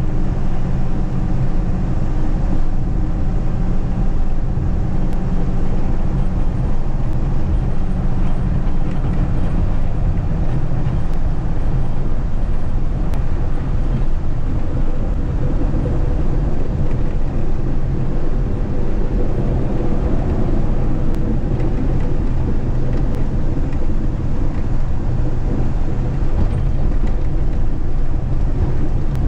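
Mack Granite snowplow truck heard from inside its cab while plowing: a steady, loud rumble of the diesel engine and drivetrain, mixed with the noise of the plow pushing and throwing snow.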